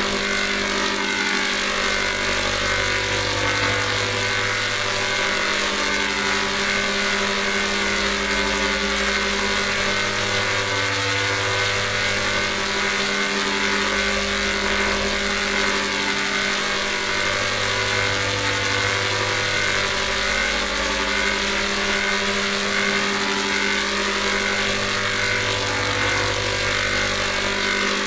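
Steady synthesized drone sounding a G major chord, buzzy and engine-like over a bright hiss, with a low bass note that comes in and drops out every few seconds.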